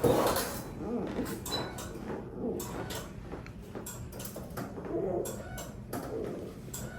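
Hands rubbing and pressing over skin and clothing on a treatment table, with irregular soft rustles and small clicks and a louder rustle at the start.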